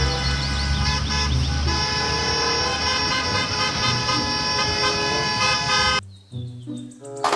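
Vehicle horn tooting over background music, the dense horn sound cutting off suddenly about six seconds in, with a short loud burst near the end.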